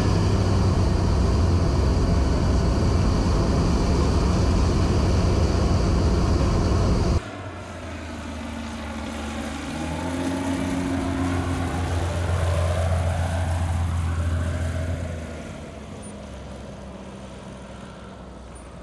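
Cessna 185 floatplane's IO-550 six-cylinder engine and propeller droning loudly and steadily inside the cockpit. About seven seconds in the sound cuts to the plane heard from the ground as it flies past low, its engine note sliding in pitch as it goes by, then fading near the end.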